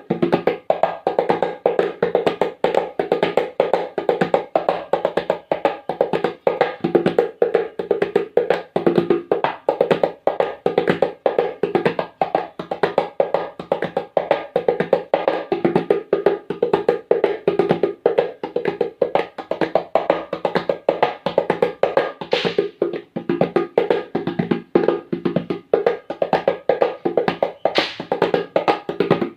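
Hand percussion playing a fast, even, unbroken rhythm that imitates a train running at speed.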